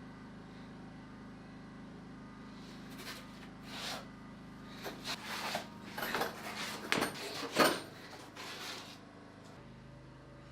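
A run of irregular knocks and clatters from about three seconds in, loudest about three-quarters of the way through, over a steady low hum.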